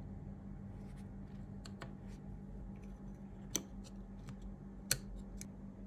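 Light clicks and taps of a small circuit board being handled and fitted into its SSD casing. There are two sharper clicks, about halfway through and near the end, the second the loudest. A steady low hum runs underneath.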